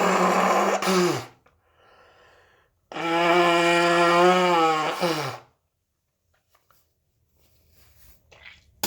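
Nose blocked by a heavy head cold being blown hard twice, each blow a long honk of about two and a half seconds over a rush of air, dropping in pitch as it ends. A faint breathy sound falls between the blows, and a short click comes near the end.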